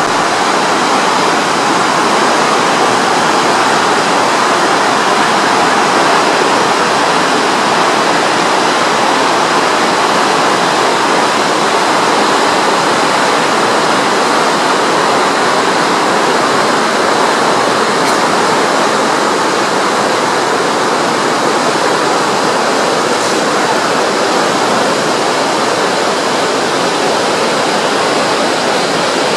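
Steady rushing of water churned up in a cruise ship's wake, an even hiss with no breaks.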